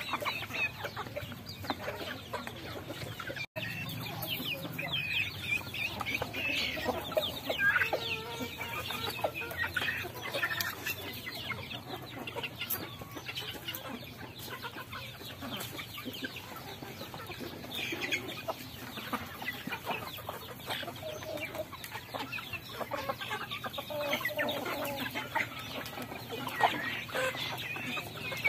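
Mixed flock of hens and roosters clucking while feeding, many short clucks and calls overlapping without a break.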